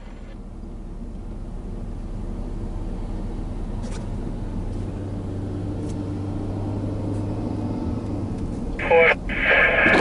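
Steady low vehicle engine and road hum inside a car's cabin, growing slightly louder, with a fire truck crossing and pulling away ahead. A short burst of voice from a scanner radio cuts in near the end.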